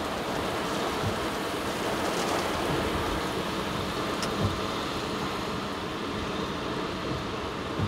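Steady rushing noise of storm wind and rain, with a faint tap about four seconds in.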